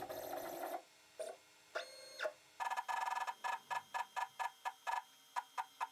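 X-Carve CNC's stepper motors jogging the router in small steps, each step a brief quiet pitched buzz, repeating about four times a second in the second half: the bit is being lowered onto a sheet of paper to zero the machine by hand.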